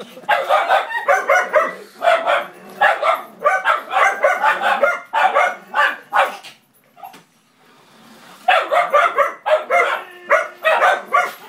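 Puppies barking excitedly at a moving remote-control car, rapid high barks several a second. The barking stops for about two seconds past the middle, then starts again.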